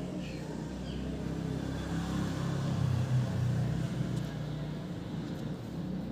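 A motor vehicle's engine running, a low hum that swells about midway and then eases off.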